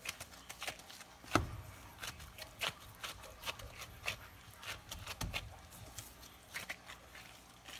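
Gloved hands handling raw steaks on a wooden cutting board: a run of short glove rustles and clicks, with two soft thumps as the meat is set down on the board, about a second and a half in and again a little past five seconds.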